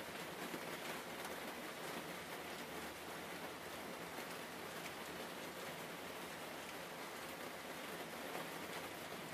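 A steady, even hiss with no distinct clicks or taps.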